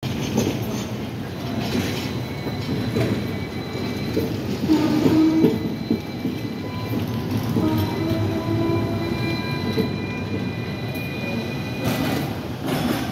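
Hong Kong double-deck electric tram moving along its track: steady rumble of the wheels on the rails, a few sharp clacks over rail joints, and thin steady whining tones that come and go.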